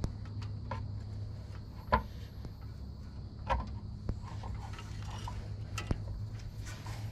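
Metal parts and hand tools clinking and tapping, several separate sharp knocks with the loudest about two seconds in, over a steady hum.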